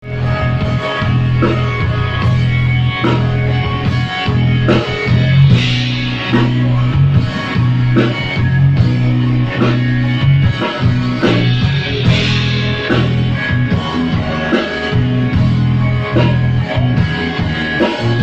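Live rock band playing an instrumental passage: a prominent electric bass line under regular drum-kit hits, with guitar.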